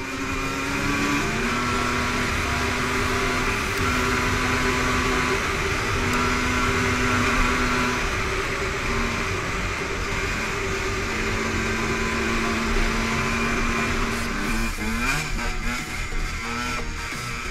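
HM Motard 125 dirt bike's engine running under way on a trail, heard from a helmet-mounted camera. Its note holds steady for a second or two at a time and steps up and down as the rider works the throttle and gears, and rises in quick revs near the end.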